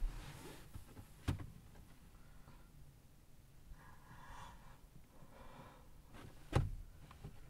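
A few sharp knocks or thumps inside a quiet car cabin: one about a second in and a louder one near the end. Between them come soft breath-like sounds.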